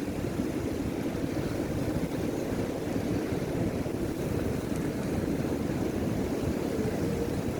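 Wind buffeting the microphone: a steady low rumble that does not let up.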